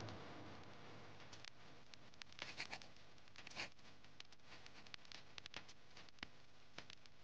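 Faint, scattered light clicks and rustles of a wooden drum-shaped rolling pin, thick in the middle and thin at the ends, working shaomai wrappers on a floured board. The clicks come more often in the second half.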